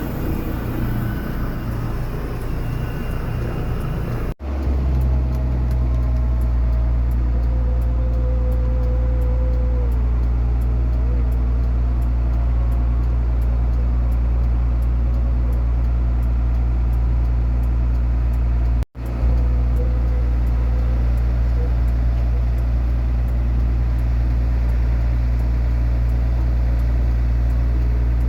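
Aircraft engine running with a loud, steady low drone. A different, busier sound fills the first four seconds, and the sound cuts off abruptly twice, about four and nineteen seconds in.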